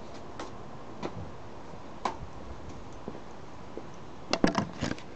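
A few light, isolated taps, then a quick run of louder knocks and clicks near the end as the camera is handled.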